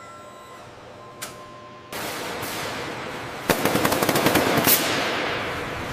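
Automated ring-shaped riveting machine driving rivets along a fuselage seam: a steady hiss starts about two seconds in, and from about halfway a rapid rattle of sharp hammering strikes, roughly ten a second, joins it.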